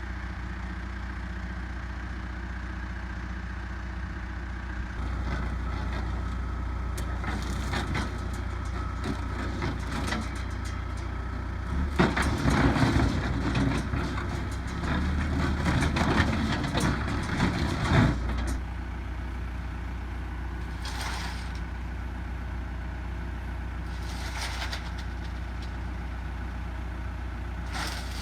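Backhoe diesel engine running steadily, working harder from about five seconds in, with a series of sharp metal knocks and clanks in the middle, then dropping back to idle for the rest.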